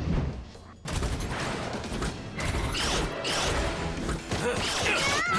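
Cartoon action sound effects over background music: mechanical clanking and rising whooshes as a giant robot moves, with a brief drop-off about a second in.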